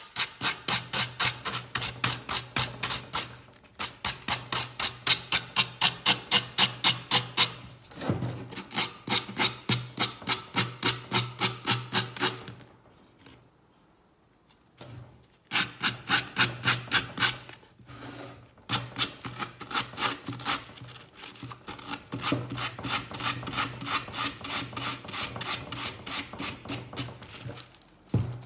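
Coarse-grit sanding sponge rubbed back and forth over the edges of a wooden crate covered in decoupage tissue paper, in quick rhythmic strokes of about three to four a second. The strokes stop for short breaks and for a pause of a few seconds near the middle. The coarse grit is cutting through the paper along the edges.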